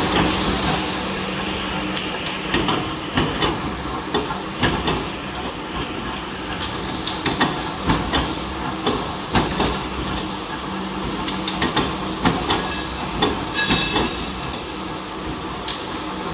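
Flywheel-driven mechanical punch press running with a steady hum while it blanks aluminium discs from sheet, each stroke a sharp metallic bang, about one or two a second at uneven spacing, mixed with the clatter of handled sheet metal.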